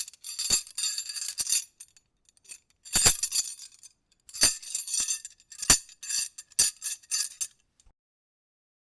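Metal horseshoe puzzle's two chained horseshoes being fidgeted in the hand, without the ring: irregular bursts of jangling chain links and clinking metal, with a short lull about two seconds in and stopping after about seven and a half seconds.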